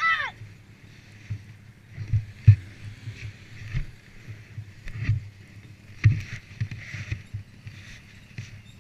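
ATV riding over uneven ground: irregular low thumps and knocks over a faint hiss, with a brief falling squeal right at the start.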